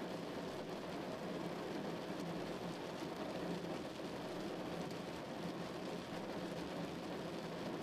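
Rain on a moving car's windshield, heard from inside the cabin, mixed with steady road and tyre noise.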